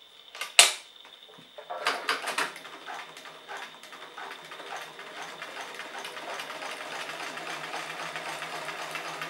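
Bernina Record 930 domestic sewing machine stitching through two layers of bicycle inner tube. A sharp click comes about half a second in; the motor starts about two seconds in and runs steadily with rapid, even needle strokes. The rubber does not feed smoothly under the presser foot, because of the friction of the inner tube on the bottom of the foot.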